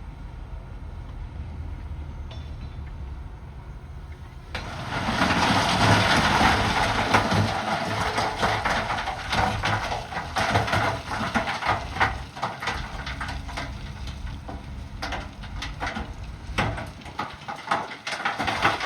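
Bulldozer's diesel engine running steadily, then about four and a half seconds in a loud, harsh grinding of rock being pushed starts, full of sharp knocks and cracks, and goes on to the end.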